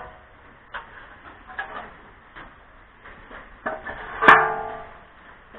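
Stamped sheet-steel sill repair panel being handled and knocked, with a few light taps and then one loud clang about four seconds in that rings on briefly.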